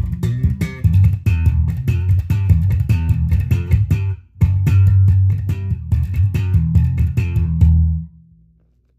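Electric bass guitar played solo: a busy run of plucked notes, broken by a short pause about four seconds in. The playing picks up again and ends near the close on a held note that fades away.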